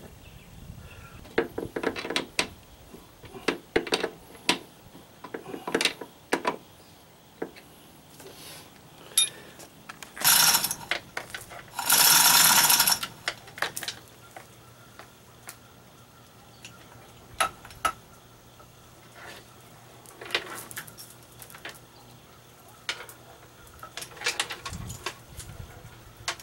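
Scattered metallic clinks and clanks of hoist chain and hand tools against an outboard motor's mounting bracket, with two louder, longer rattles about ten and twelve seconds in.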